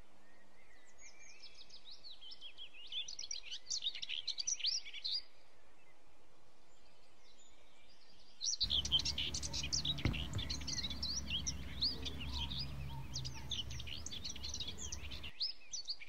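Small birds chirping, many quick high chirps crowded together, pausing for a few seconds in the middle. About halfway through, a steady low rumble comes in suddenly under the chirping and cuts off near the end.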